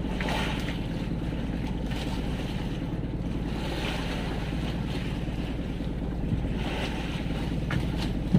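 Small fishing boat's engine running steadily at low speed, a low even hum. Waves wash against the hull three times, a few seconds apart, with wind on the microphone.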